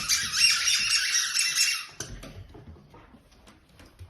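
Akita Inu giving a loud, high-pitched whine that breaks off about two seconds in.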